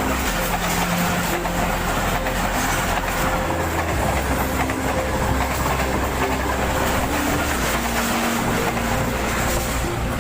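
Passenger train passing at slow speed, its wheels clicking over the rail joints under a steady rumble of running gear.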